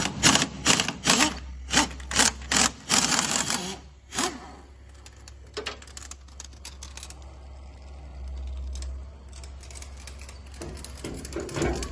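Air impact wrench hammering in about eight short bursts on the strut-top mount nuts, undoing them to take out the car's front shock absorber. The bursts stop about four seconds in, leaving a low steady hum.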